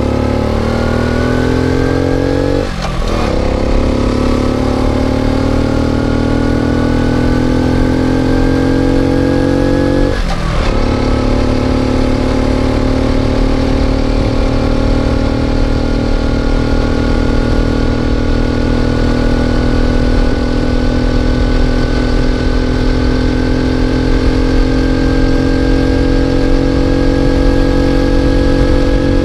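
Moped engine being ridden and accelerating through the gears. The revs climb, drop sharply at a gear change about three seconds in and again about ten seconds in, then rise slowly and steadily.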